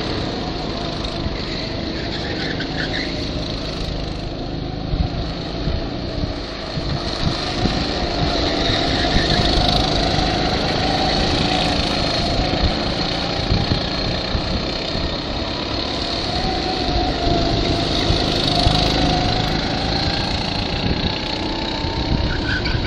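Go-kart engines running as the karts lap the track, the engine note rising and falling slowly with the throttle.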